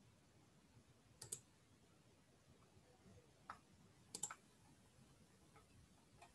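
Faint computer mouse clicks over near silence. There is a quick double click about a second in, a single click, another double click around four seconds in, and one more click near the end.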